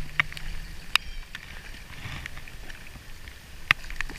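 Steady rain on a river with irregular sharp ticks of raindrops striking close to the microphone, while a hooked trout is played in.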